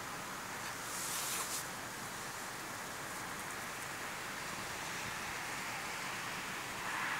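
Steady outdoor background hiss with a brief louder hiss about a second in, then a car driving past on the road near the end.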